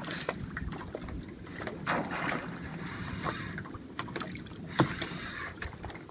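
Water lapping against a small boat's hull on light chop, with scattered light knocks and clicks.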